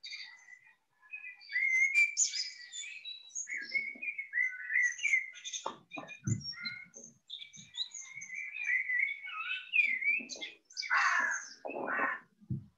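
Birdsong: a busy run of quick chirps, trills and gliding whistled notes, with a few short low knocks about six seconds in and again near the end.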